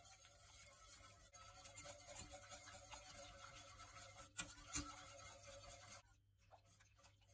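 Faint, rapid scraping and clinking of a wire whisk stirring a simmering flour-thickened mushroom sauce in a stainless steel pot. There is a sharper knock against the pot about five seconds in, and the whisking stops about six seconds in.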